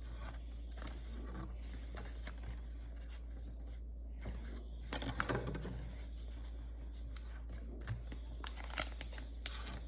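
A sheet of paper being folded and creased by hand: rustling and crinkling with short crackles, loudest about five seconds in, over a steady low hum.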